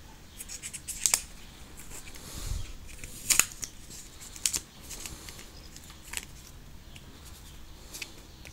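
A paper sleeve being slid off a clear plastic iPod shuffle case: rustling of paper with several sharp plastic clicks and crinkles, the loudest about three and a half seconds in.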